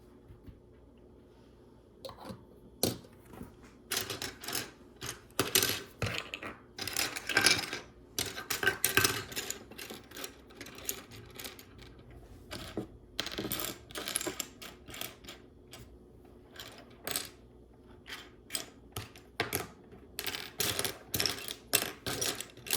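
Loose plastic LEGO Technic pieces clattering and clicking as they are rummaged through by hand. The clicks come in irregular bursts of rattling from about two seconds in.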